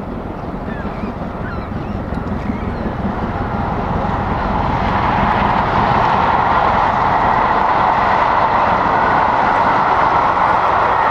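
Steam-hauled passenger train behind BR Standard Class 7 'Britannia' Pacific 70000 approaching along the sea-wall line, its running noise growing steadily louder. A few short bird calls in the first couple of seconds.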